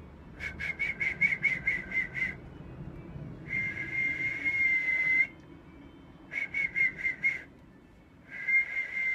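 A man whistling into a telephone mouthpiece. He gives a quick run of pulsed whistles, about four or five a second, then a long steady note, then a shorter pulsed run, and a second long note near the end.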